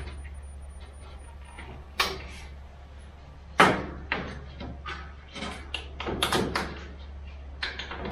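Plastic zip tie being pulled through a clamp and its ratchet lock, with hands knocking the clamp against the metal shelving. Scattered sharp clicks, the loudest about three and a half seconds in, then a quicker run of short clicks.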